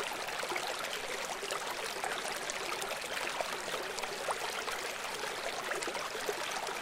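River water flowing steadily: an even rushing, with short pitched plinks and gurgles scattered through it.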